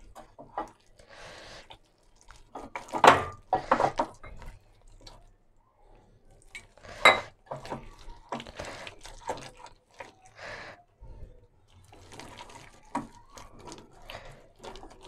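A hand mixing wet gram-flour pakora batter in a glass bowl: irregular wet squishing strokes with knocks against the glass, the sharpest about 3 and 7 seconds in.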